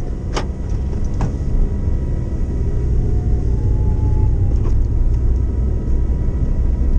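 Road and engine noise inside a moving Honda N-VAN kei van: a steady low rumble, with two sharp clicks in the first second or so.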